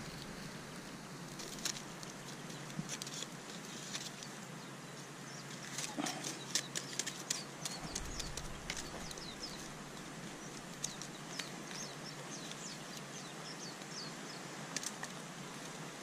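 Scattered light clicks and crackles from sticks prodding a foil-wrapped fish on the embers of a small wood fire in a ring of stones, over a faint steady background. The clicks come thickest in the middle.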